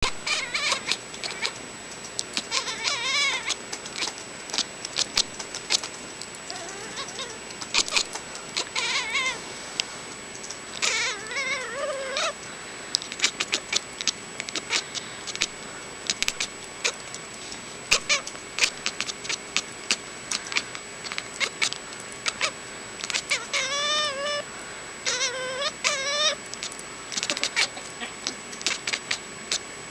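Domestic cat making bursts of warbling, trill-like calls whose pitch wavers rapidly, about five times, among frequent sharp clicks and taps.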